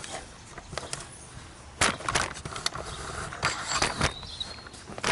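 Scattered knocks and clicks of handling on the lawn tractor, a few irregular ones spread over several seconds; no engine running.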